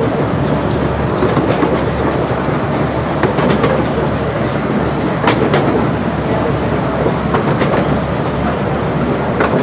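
Miniature railway carriages running on 15-inch gauge track: a steady rumble of wheels on rail, broken now and then by sharp clicks from the wheels crossing rail joints, some in quick pairs.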